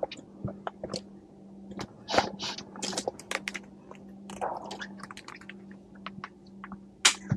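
Scattered rustles, clicks and crunchy handling noises close to a clip-on microphone, from clothing and hand movement, over a steady low hum.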